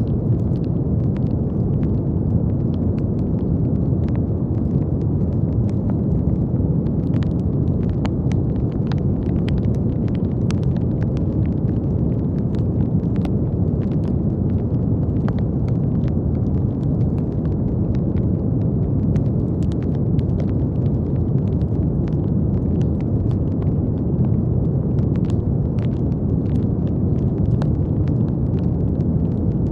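Steady, deep brown noise, a constant low rush with no change in level, sprinkled with faint scattered crackles.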